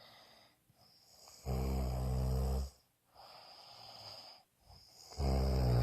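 Snoring in a regular breathing rhythm. There is a loud, low-pitched snore about a second and a half in, then a quieter breath, and another loud snore starts near the end.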